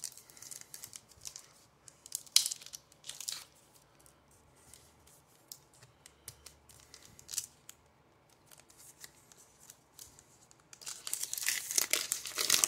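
Plastic wrapper of a baseball card pack being torn open by hand: scattered crinkles and small tears at first, then a longer spell of loud tearing and crinkling near the end.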